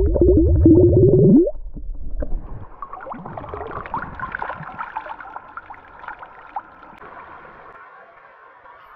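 Round glass bottle filling under water: fast bloop-bloop glugs of air bubbling out of its neck, rising in pitch and stopping about a second and a half in as it fills. Then water pouring out of the bottle and splashing onto the lake surface, quieter and fading.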